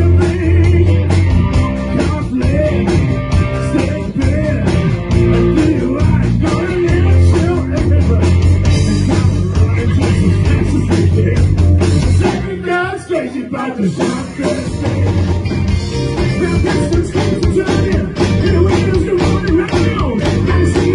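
Live rock band playing: electric guitars, bass, drums and vocals. About twelve seconds in, the bass and drums drop out for a short break, then the full band comes back in.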